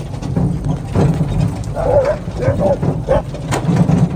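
Husky sled dogs barking and yipping in a quick run of short calls starting about two seconds in, over a steady low rumble from the sled moving along the gravel trail.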